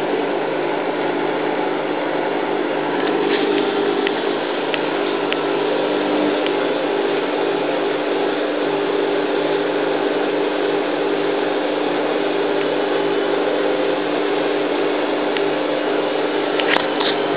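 Hoover Time Manager H130E washing machine running steadily with its motor and drum going, shortly before spin, a constant hum with a few faint clicks.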